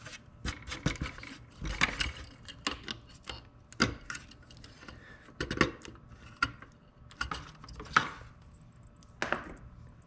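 Irregular clicks, knocks and rattles of hard plastic being handled: a scooter's front cowl and its plastic clips being worked loose by hand. The clicks are spaced unevenly, some sharp and loud, with soft rubbing in between.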